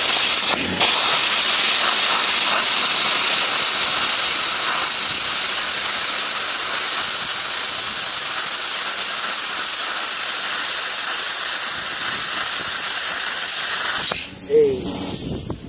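Lidl Parkside PPSK 40 A1 plasma cutter cutting 4 mm steel at 32 amps: a steady, loud hiss of the plasma arc and air jet, which stops abruptly about a second and a half before the end as the cut finishes.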